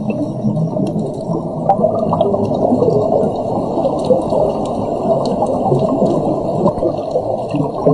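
Water gurgling and rushing, dull and muffled, steady throughout with faint clicks above it.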